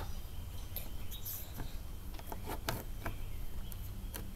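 Homemade slime being pressed by hand into a clear plastic container, giving small, irregular wet clicks and pops.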